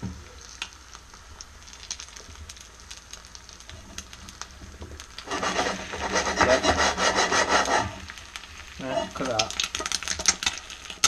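Cast iron skillet shaken and slid on the range hotplate, its base scraping the metal in two spells of a couple of seconds each, about five and nine seconds in, over a quieter sizzle of an egg frying in lard. The pan is being moved to slide the egg, showing the seasoned pan is non-stick.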